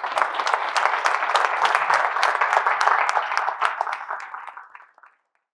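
Audience applauding, many hands clapping together, fading away near the end.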